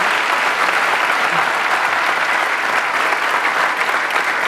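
Audience applauding steadily with scattered cheers, in reaction to a correct mind-reading reveal.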